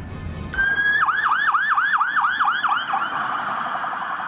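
Electronic police siren: a short steady tone, then a yelp of quickly falling sweeps about four a second, which changes into a faster warble about three seconds in.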